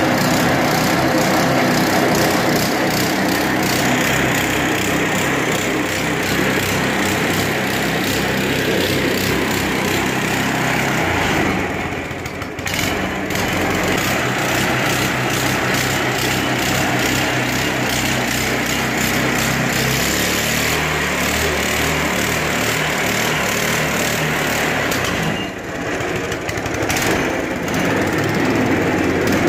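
Predator 212cc single-cylinder four-stroke engine running on a homemade belt-drive buggy, its speed shifting a few times, with brief drops in loudness about twelve seconds in and again near twenty-five seconds.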